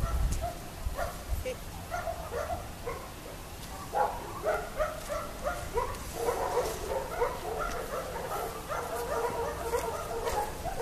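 A dog whining and yipping in short high calls, scattered at first and then more and more frequent, nearly continuous in the second half.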